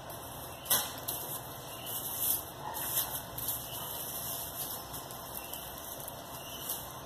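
Plastic bag crinkling and rustling in short bursts as a lump of white cold-porcelain clay is handled and unwrapped from it.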